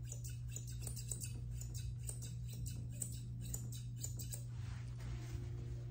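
Curved grooming shears snipping through a Bichon's coat, a quick run of about four crisp snips a second that stops about three-quarters of the way through, over a low steady hum.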